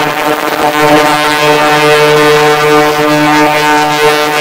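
Ultrasonic cleaner running with a logic board submerged in its tank: a loud, steady buzzing hum with a hiss over it, cutting off abruptly at the end. It is cleaning moisture out from under a shorted audio IC.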